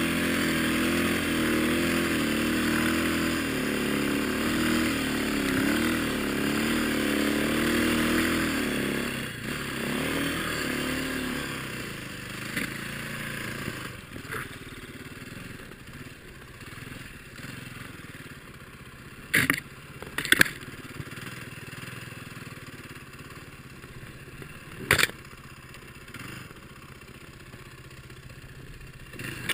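Snowbike's single-cylinder four-stroke dirt-bike engine running under load, its revs rising and falling, then falling away to a much quieter run about ten seconds in. Three sharp knocks stand out later, two close together and one a few seconds after.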